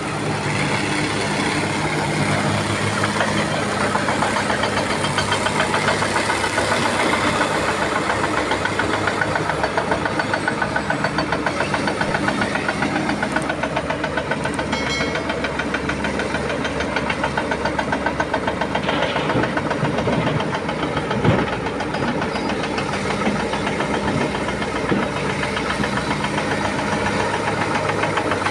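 Diesel engine of a Komatsu PC300 hydraulic excavator running steadily, with one sharp knock about three-quarters of the way through.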